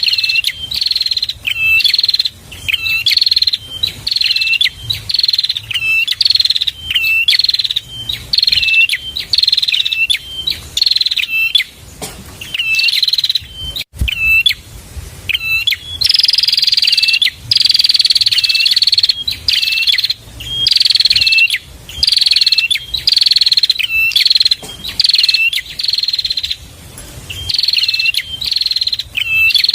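Prinia (prenjak) singing: a fast run of sharp repeated chirps, about two a second, each a falling high note with a short hooked note below it. There are brief pauses around the middle and near the end.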